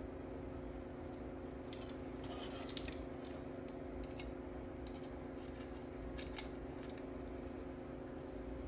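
Small metal parts clinking and scraping now and then, over a steady low hum.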